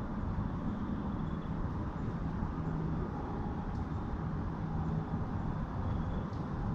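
Steady low rumble with a low hum that fades in and out, like distant engine or traffic noise.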